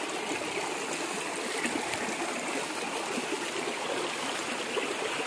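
A stream flowing steadily, an even wash of running water.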